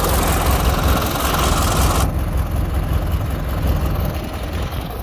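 Murray riding lawn tractor's engine running with a steady low throb as the tractor rolls slowly. For about the first two seconds a hiss of wind on the microphone lies over it, then cuts off suddenly.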